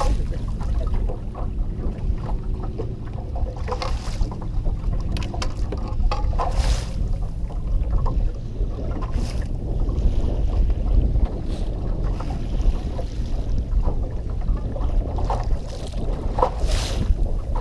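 Wind on the microphone and water lapping against a small boat's hull, with a steady low rumble and a few short splashes.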